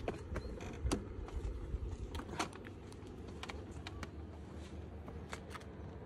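Scattered light clicks and knocks of a bucket seat and its metal rails being handled and lifted into a car, over a low steady rumble.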